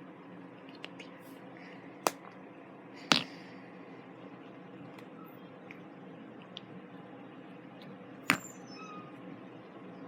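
Handling noise: three sharp clicks or taps, about two, three and eight seconds in, with a few fainter ticks between them, over a steady low hum.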